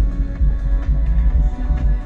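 Background music with a strong, regular bass beat and sustained tones.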